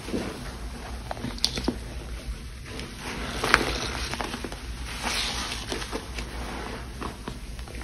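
Frothy lather of Pine-Sol, Lestoil and Murphy's Oil Soap being squeezed and squished: wet crackling foam and small clicks and drips, swelling louder a few times.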